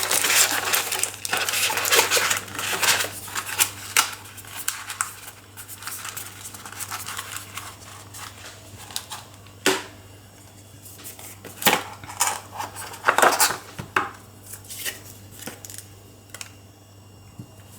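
Handling of a smartphone and its cardboard box and plastic packaging: rustling and crinkling for the first few seconds, then scattered clicks and light knocks of hard objects being set down and picked up, over a faint steady hum.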